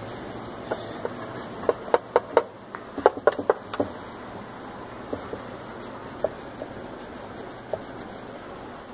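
A rag rubbing and wiping over a dirty go-kart engine's shroud, with a quick run of light taps and clicks in the first few seconds and a few scattered ones after.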